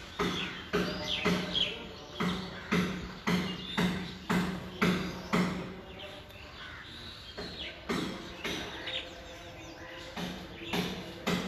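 Footsteps walking at about two steps a second, pausing briefly a little past the middle, with birds chirping in the background.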